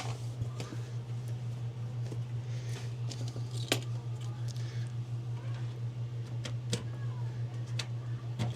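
Scattered light clicks and knocks of door shims being handled and pushed in between a clothes dryer's drum and its motor, over a steady low hum.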